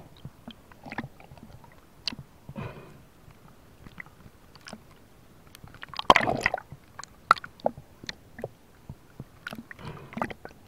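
Water sloshing and gurgling with scattered sharp clicks, and a louder burst of sloshing about six seconds in.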